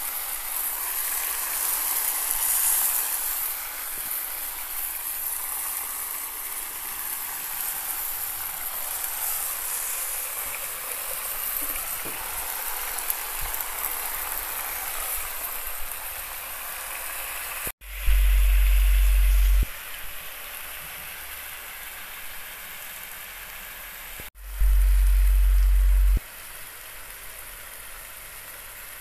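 Nutria meat and sliced onions sizzling on a hot saj, a steady hiss. Twice, after a sudden break in the sound, a loud deep hum lasts just under two seconds: once about two-thirds of the way in, and again about six seconds later.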